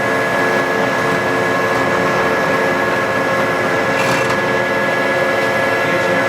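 Toolmex (Tarnow TUJ-50M) gear-head lathe running with its spindle in 630 RPM, the headstock gearing giving a steady hum of several tones. A brief hiss comes about four seconds in.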